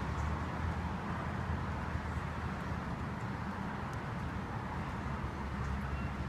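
Steady low rumble of gusting wind on the microphone, with an even hiss above it.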